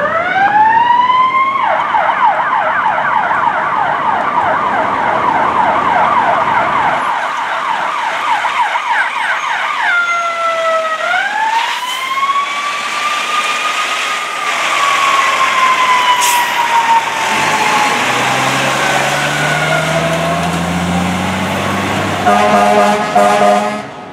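Fire engine's electronic siren running code 3. It winds up, switches to a fast yelp, and about ten seconds in changes to a slow rising and falling wail. A loud horn sounds near the end.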